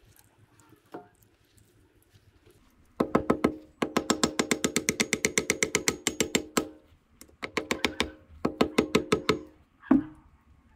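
Ratchet wrench clicking in quick runs of about ten clicks a second, four runs in all, the longest lasting nearly three seconds; a single knock follows near the end.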